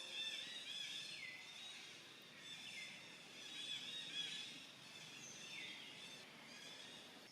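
Faint birds chirping and calling, with a few clear calls that fall in pitch, three times.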